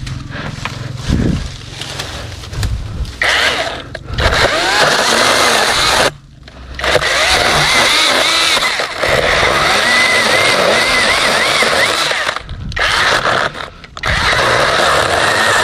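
KEELAT cordless electric mini chainsaw starting up about three seconds in and cutting into a longan tree trunk, its motor and chain running loudly with the pitch wavering as the bar bites. It cuts out briefly about six seconds in and twice more shortly before the end, then runs on. Before it starts there is rustling and low thumps of handling among cut branches.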